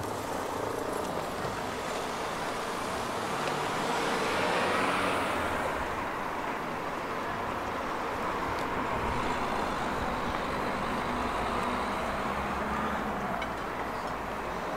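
Road traffic: cars and vans running past on a town street, with one vehicle passing closest and loudest about four to five seconds in, its sound falling in pitch as it goes by.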